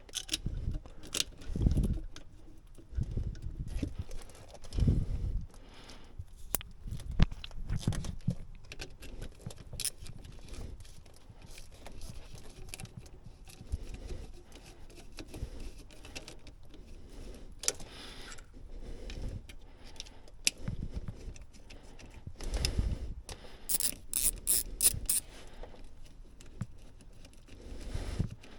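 Hand tools and metal parts clinking and scraping during work on a car's thermostat housing, with irregular dull knocks and sharp clicks. A short run of metallic jingling comes near the end.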